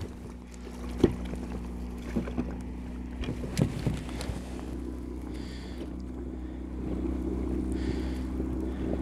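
Small boat's outboard motor running at idle, a steady low hum, growing a little louder about seven seconds in, with a few sharp knocks in the boat in the first half.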